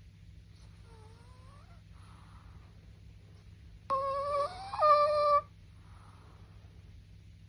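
Chihuahua snoring, each breath in a high-pitched nasal whistle: a faint one about a second in and a loud, longer one about four seconds in that jumps up in pitch midway, with soft breathy exhales between.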